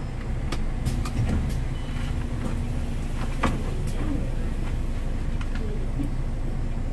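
MAN Lion's City city bus's diesel engine idling with a steady low rumble while the bus stands still, heard from the driver's cab. A few sharp clicks sound over it, the clearest about three and a half seconds in.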